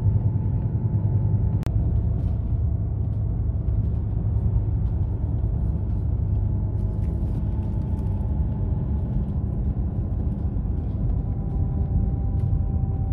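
Inside a moving bus at road speed: a steady low rumble of engine and road noise, with a faint high whine over it. A single sharp click comes about one and a half seconds in.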